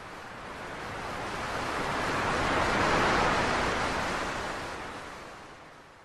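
Ocean surf: a rushing wash of waves that swells to a peak about halfway through, then fades away.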